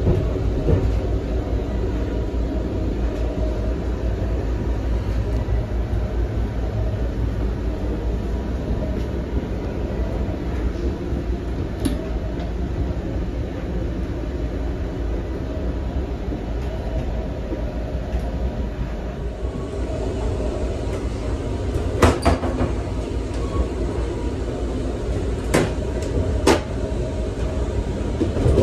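Steady low rumble of a Siemens Venture passenger coach rolling along the track, heard from inside its bathroom. A few sharp clicks and knocks come in the second half.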